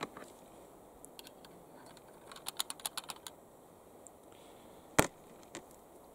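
Handling sounds of reloading a muzzleloading blanket gun: a quick run of about ten small clicks near the middle, then one sharp knock and a lighter tap near the end.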